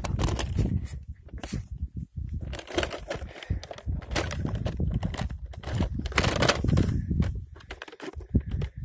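Wind buffeting a phone's microphone in an uneven low rumble, mixed with irregular rustling and knocking from the phone being handled and moved.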